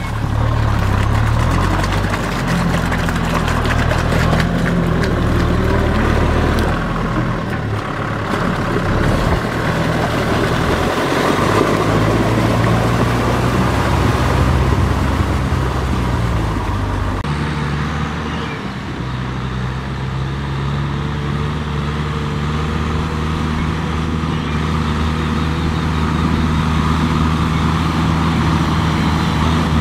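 Farm tractor's diesel engine working under load in wet paddy mud, its pitch rising and falling as the load changes. About two-thirds of the way through, the sound switches abruptly to a steadier, even engine note.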